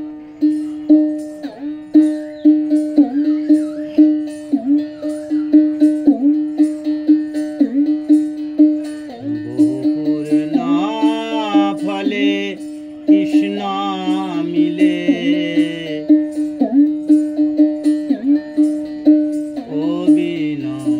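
Background instrumental music: plucked strings over a steady beat of about two strokes a second, with a bending melody line coming in about halfway through.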